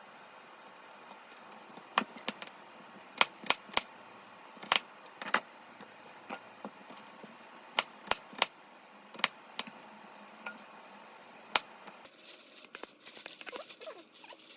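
Irregular sharp clicks and light clinks of small hard objects knocking together, about a dozen of them, followed near the end by a softer, busier crackling.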